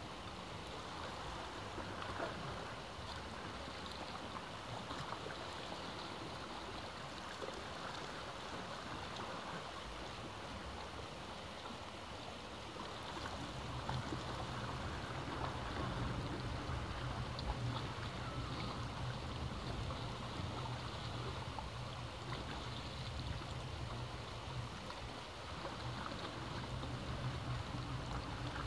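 Ocean waves washing steadily, a continuous rushing hiss of water. About halfway through, a steady low rumble joins in.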